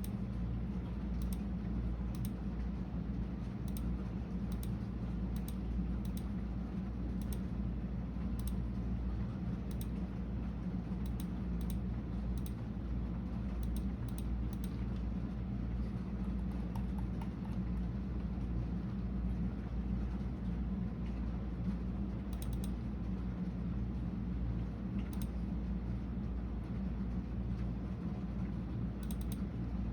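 Typing on a computer keyboard: irregular keystrokes, frequent in the first half and sparser later, over a steady low hum.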